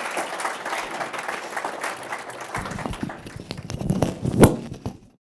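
Audience applauding with a dense patter of claps. About two and a half seconds in, rustling and knocks close to the microphone take over, with one sharp loud knock near the end before the sound cuts off suddenly.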